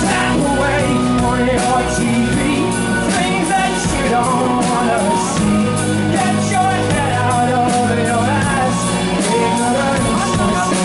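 A live rock band plays: a man sings over bass guitar and a drum kit keeping a steady beat.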